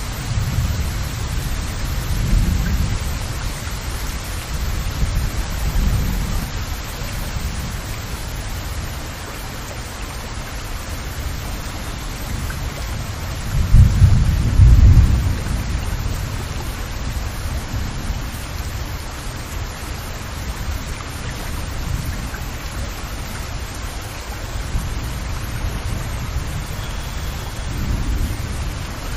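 Steady heavy rain hissing down, with several deep rumbles swelling underneath; the loudest comes about halfway through.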